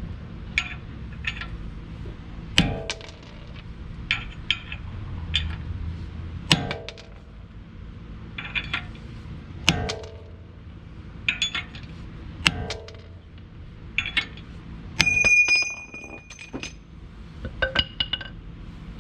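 Metal clinking and knocking as a rubber hammer drives a half-inch metal tool against a rusted-on wheel spacer to knock it off the hub, which has just started to move. There are about four heavier ringing blows a few seconds apart, lighter clinks between them, and a longer high metallic ring about fifteen seconds in.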